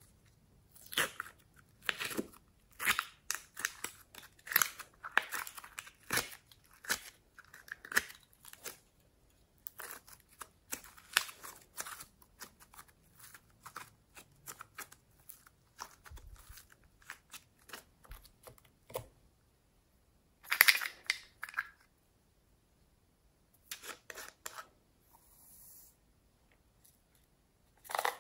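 Soft, colourful slime being squeezed, pulled apart and kneaded by hand: a run of small sticky crackles and tearing sounds. They come thickly in the first half, then sparser, with a louder cluster about twenty seconds in.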